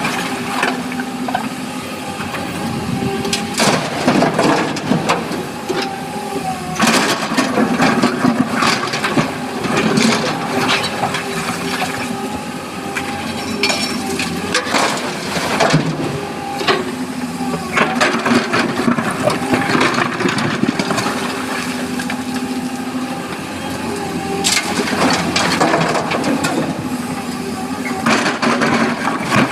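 Sany hydraulic excavator's diesel engine running steadily under load while its bucket scoops broken quarry rock and dumps it into a steel dump-truck body. The rock clatters and crashes every few seconds.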